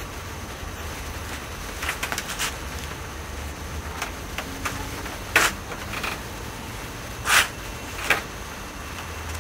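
Wooden porch swing hung on chains moving, giving a few short scraping sounds, the loudest a little past halfway and again about two seconds later, over a steady low hum.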